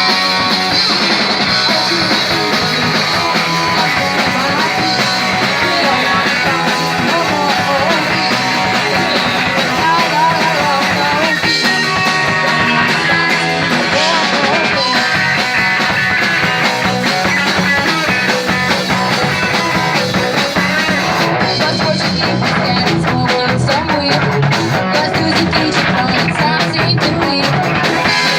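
Punk rock band playing live, loud and continuous, with electric guitar over drums; the drums beat out a fast, even rhythm in the second half.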